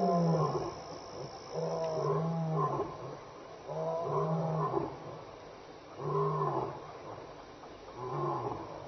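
A lion roaring: a series of deep calls, about one every two seconds, growing a little fainter toward the end.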